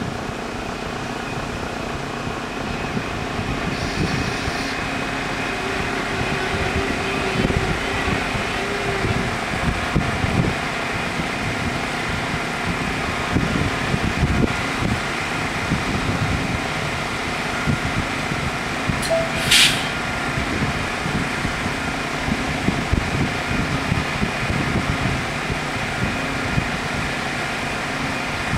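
Level-crossing warning bells ringing steadily over the low running of a train stopped close to the crossing, with one short hiss about two-thirds of the way through.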